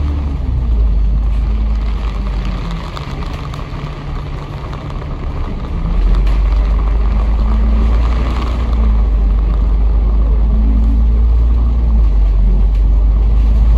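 A Kowloon Motor Bus running on the road, with a heavy low rumble. Its engine note drops near the start and climbs again about six seconds in as the bus slows and pulls away.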